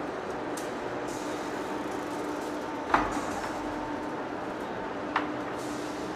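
Heavy-duty face lathe running, turning a large forged steel rotor shaft against the cutting tool: a steady machine noise with a held tone through it. Two sharp knocks, the first about three seconds in and louder, the second about five seconds in.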